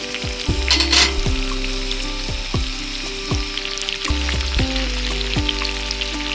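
Background music with a steady kick-drum beat and bass, about one beat every three-quarters of a second, over a steady crackling hiss that briefly gets louder about a second in.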